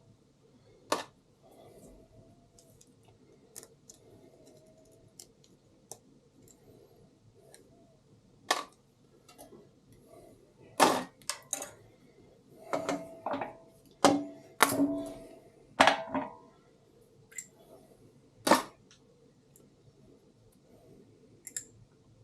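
Metal tools and engine parts clicking, clinking and knocking while a diesel cylinder head is worked on, in scattered single strikes with a busy run of louder, briefly ringing knocks in the middle.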